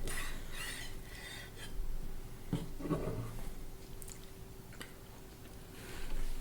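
Quiet eating sounds: soft rustling and chewing with a few small clicks, and a brief low murmur about three seconds in, over a faint steady hum.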